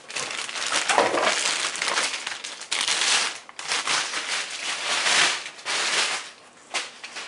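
Cardboard shipping box and its packing being handled and shoved aside, crinkling and scraping in several bursts that die down near the end.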